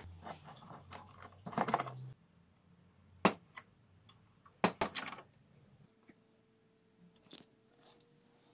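Steel parts of a homemade angle-grinder stand being handled and set down on a wooden workbench: a run of sharp clicks and knocks in the first two seconds, then single sharper knocks about three and five seconds in.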